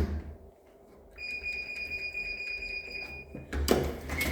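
A steady electronic beep tone lasting about two seconds, then a short noisy clatter and a brief second beep near the end.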